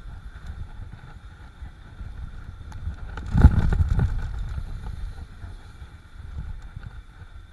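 Wind buffeting the microphone and a steady low rumble of a mountain bike rolling fast down a dirt trail. About three and a half seconds in there is a louder surge of rumble and rattle lasting under a second.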